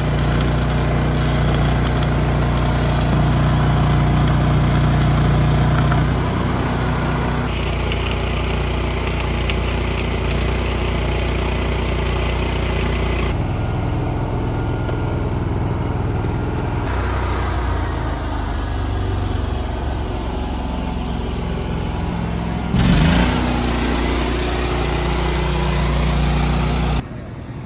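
A motor engine running steadily. Its sound changes abruptly several times, as if cut between takes, and near the end it briefly gets louder with a short rise and fall in pitch.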